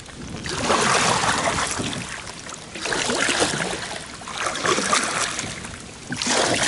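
Double-bladed kayak paddle stroking through the water on alternating sides. Each stroke is a swell of splashing water that fades before the next, four strokes in all.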